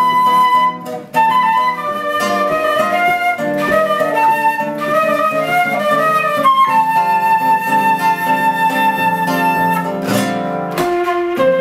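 Concert flute and nylon-string classical guitar playing a duet. The flute carries the melody over plucked guitar chords, with a brief dip about a second in and a long held note in the second half.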